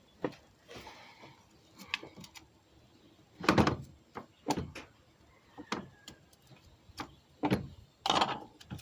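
Scattered knocks, clicks and scrapes of a knife blade and hands working at the engine's lower intake plate, prying old O-ring seals out of their grooves. The louder knocks come at irregular intervals, about once a second in the second half.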